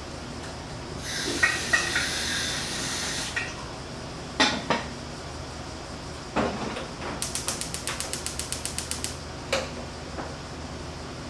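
A hiss lasting about two seconds, then a few separate knocks, then a quick, even run of about fourteen small mechanical clicks, roughly seven a second, and one more knock near the end.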